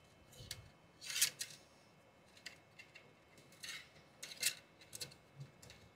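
A few short, irregular scraping rubs as 3D-printer filament is pushed by hand through the printer's filament sensor and into its feed tube.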